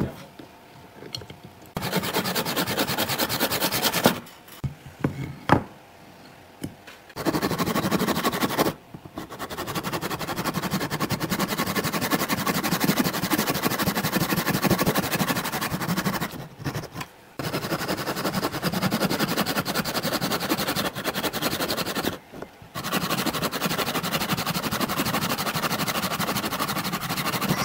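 Hand saw rasping through small wooden blocks in quick back-and-forth strokes, in several bouts broken by short pauses.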